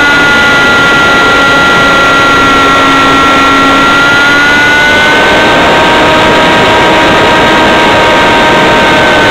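A single-cylinder model glow engine on an RC P-51 warbird running at high speed in flight, heard from right behind it: a loud, steady buzz whose pitch sags slightly a couple of seconds in and rises again about five seconds in.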